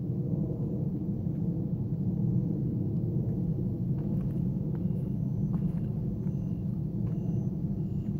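Steady low outdoor rumble at night. From about halfway through come faint, short high-pitched insect chirps, repeating a little under twice a second.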